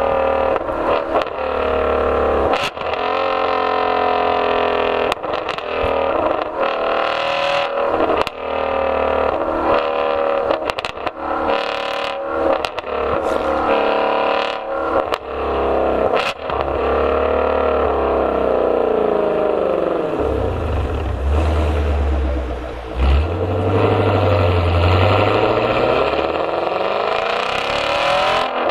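Ford Mustang Shelby GT350R's 5.2-litre flat-plane-crank V8 revving hard again and again, its pitch climbing and then dropping, with many abrupt breaks. Near the end the revs fall away slowly, then build up again in one long pull.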